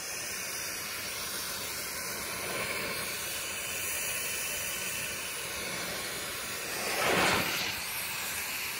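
Oxy-fuel torch flame hissing steadily as it heats the cast rear axle housing to free a pressed-in pinion bearing. The hiss swells into a louder whoosh for a moment about seven seconds in.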